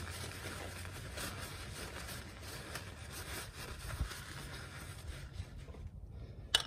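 Paper shop towel rustling and rubbing as it wipes the oil filter mounting area under an ATV, with a low thump about four seconds in and a sharp click near the end.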